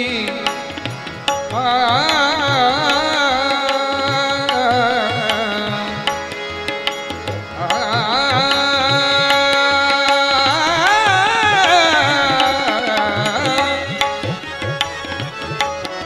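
Marathi devotional abhang music: a male voice singing two long, wavering drawn-out phrases over a steady tabla beat, with harmonium and violin accompaniment.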